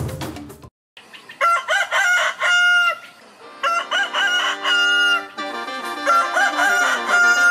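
A rooster crowing three times, each crow ending on a long held note. Music starts underneath from about the middle.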